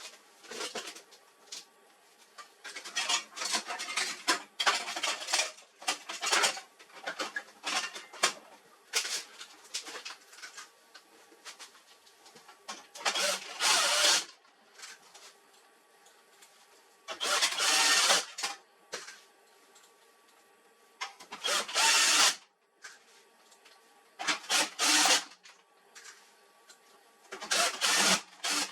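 Irregular clicking, scraping and rattling of plastic and metal printer parts being handled during disassembly, with a few louder scraping bursts about a second long.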